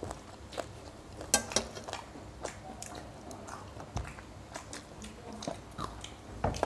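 Close-up eating sounds: chewing, with fingers mixing rice on stainless steel plates, and scattered sharp clicks and taps, the loudest a pair about a second and a half in.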